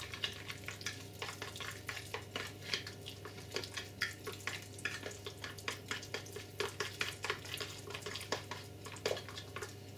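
A fork stirring and scraping through a thick, wet mix of oats, flour, ground peanuts and melted suet in a dish: irregular clinks and scrapes, several a second.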